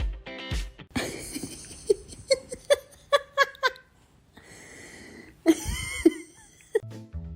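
A person laughing in a run of short bursts, about three a second, with breathy gasps between them.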